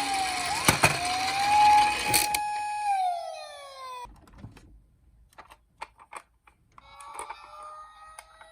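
Toy emergency-vehicle siren wailing up and down, then winding down in pitch and stopping about three to four seconds in. A few light clicks and taps follow.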